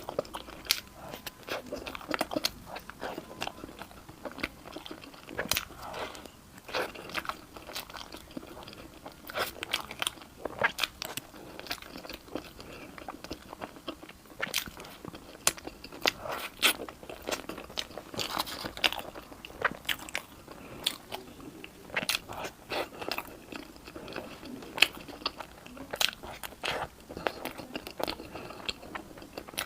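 Close-miked mouth sounds of eating crunchy food: repeated sharp crunches and chewing, several a second in irregular clusters.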